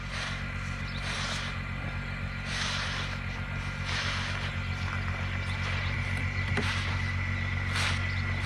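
An engine running steadily with a thin high whine over it, while a short hissing sweep of noise comes again and again, about every second or so, while snow is being cleared.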